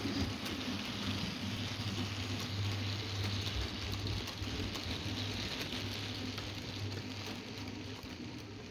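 OO gauge model goods train running past, its wheels rattling over the track in a steady, rain-like clatter with a low hum underneath. The sound eases off gradually as the wagons and brake van go by.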